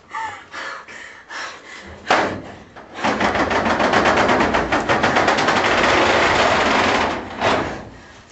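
A loud thud about two seconds in, then a loud, rapid rattling noise that runs for about four seconds and ends with a shorter burst.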